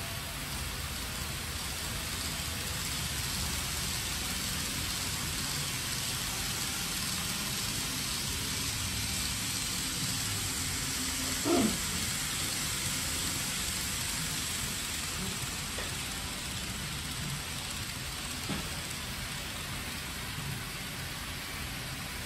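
N-scale model Shinkansen 100 series train running along an elevated track, a steady rushing rattle of wheels on rails that swells slightly as it passes close by. A brief knock sounds about halfway through.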